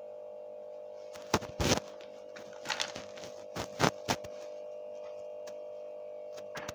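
Small plastic toy figures being handled and set down on a table: a handful of sharp clicks and knocks, bunched between about one and four seconds in, over a steady hum.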